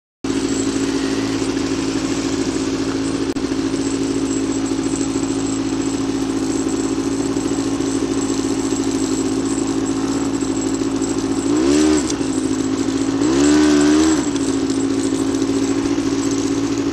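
Quad bike (ATV) engine idling steadily close by. It is revved twice in quick succession, a short blip and then a longer one, each rising and falling back to idle.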